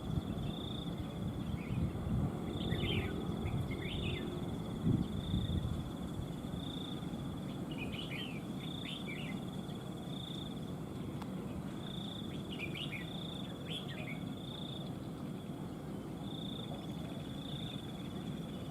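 A steady, high insect trill swelling in regular pulses about once a second. Over it, a red-whiskered bulbul sings short chirpy phrases three times. A few low rustles and knocks come in the first few seconds.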